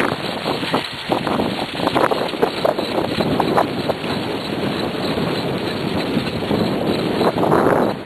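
Dog cart rolling fast behind a sled-dog team over a path covered in fallen leaves: a steady rushing of wheels through leaves and grit, with irregular crackles and knocks from the cart, and wind buffeting the microphone.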